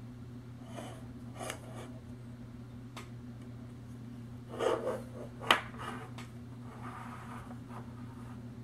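Hands turning a metal tin can over, with soft scuffs and rubbing against its paper label and a few clicks of the metal. The loudest is a sharp click about five and a half seconds in, just after a louder scuff. A steady low hum runs underneath.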